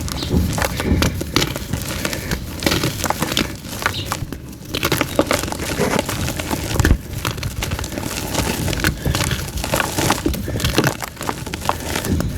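Blocks of soft white gym chalk being crushed and crumbling, a dense run of irregular crackles and crunches, with a short lull about four seconds in and a sharper crack near seven seconds.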